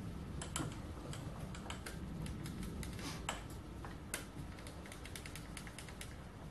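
Irregular light clicking and ticking from a bench metal lathe's handwheels being turned by hand, moving the carriage and slide into position; the clicks start about half a second in and stop near the end.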